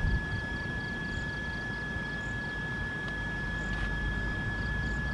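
Outdoor night ambience: a low rumbling background noise with a steady high-pitched tone and faint short chirps repeating about three times a second.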